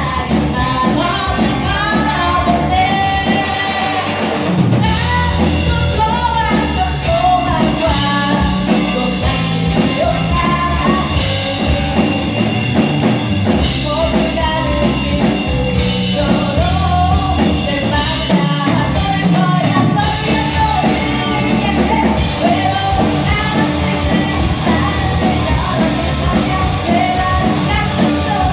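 Live rock band playing a song: a woman singing lead over electric guitar, bass guitar and a drum kit.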